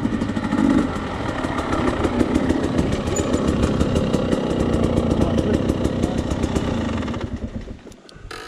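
Two-stroke Husqvarna enduro dirt bike engine idling with a rapid, even beat after pulling up, with other dirt bikes idling close by. The engine sound drops away sharply near the end.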